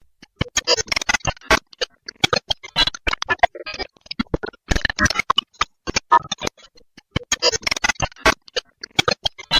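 Music in short, choppy bursts with sharp clicks and brief silences between them.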